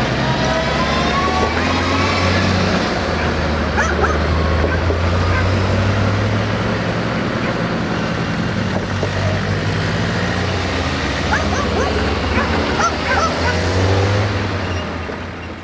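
Steady low rumble of a heavy vehicle's engine, with a dog whining and giving short yelps over it. The sound fades near the end.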